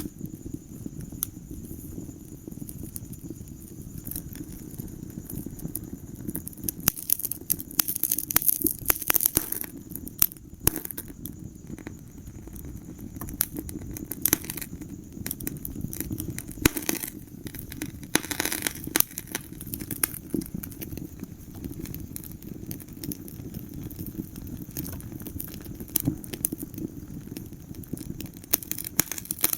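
Wood fire burning in a fireplace: a steady low rumble of flames with irregular crackles and sharp pops from the burning logs, in thicker flurries now and then.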